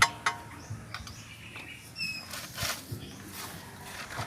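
Sharp plastic clicks and rustling from spark plug wires being handled and pushed onto a Toyota 2E engine's plugs and distributor cap, with two quick clicks at the start and a brief high chirp about two seconds in.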